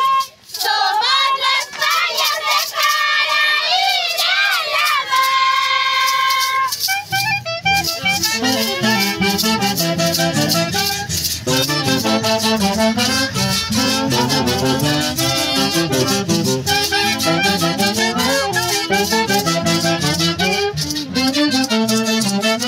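Women's high voices singing a Pallas song with long held notes for about the first seven seconds. Then lively Andean dance music takes over, with a steady beat and dense rattling percussion.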